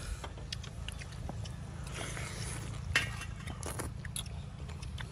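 A person eating noodles in broth with chopsticks: chewing and slurping, with scattered small clicks and a sharper click about three seconds in.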